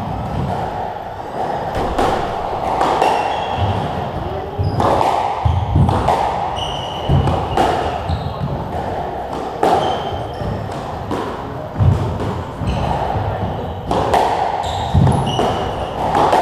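Squash rally: the rubber ball hit by rackets and thudding off the walls and floor about once a second, with short squeaks of court shoes on the wooden floor between the shots. The hits echo in the enclosed court.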